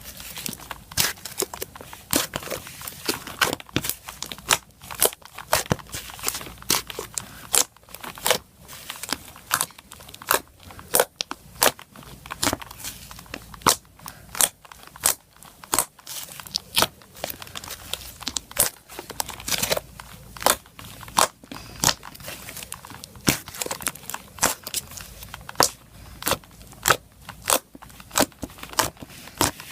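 Thick, milky slime being squeezed and poked by hand, giving sharp popping and crackling clicks about two a second as air pockets burst.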